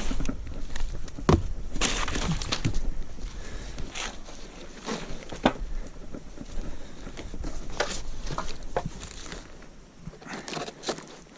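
Packaging being handled: crinkling and rustling of cardboard and wrapping, with scattered knocks and clicks of parts being moved, busier in the first few seconds.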